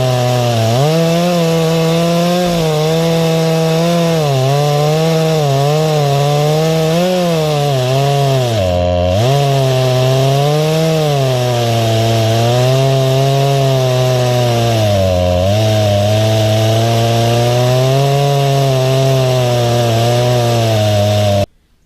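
A 20-inch Poulan chainsaw on an Alaskan chainsaw mill, running at full throttle while ripping a slab from a white oak log. Its engine pitch dips and recovers several times under the load, most deeply about nine seconds in. It stops abruptly near the end.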